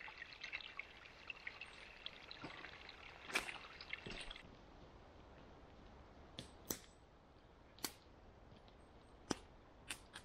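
Water trickling and pouring from a small spring pool into a split-log wooden channel, with a sharper splash about three and a half seconds in. The trickle stops suddenly after about four seconds, and a few scattered sharp knocks and snaps follow.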